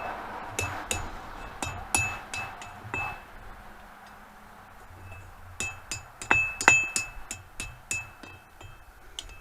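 Hand hammer striking hot steel on an anvil, each blow with a short metallic ring: about six blows, a pause of about two seconds, then a quicker run of about ten blows. This is forging a steel hold-down into shape.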